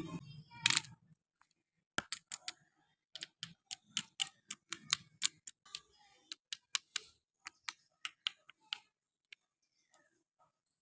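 A run of sharp, light clicks, several a second and irregular, that thin out to a few faint ticks near the end, as from a plastic toy being handled.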